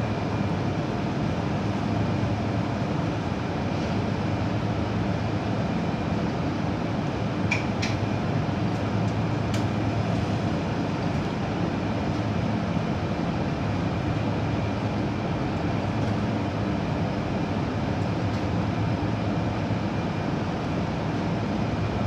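Menumaster commercial microwave oven running: a steady hum from its fan and transformer, with a few brief faint clicks about eight to ten seconds in.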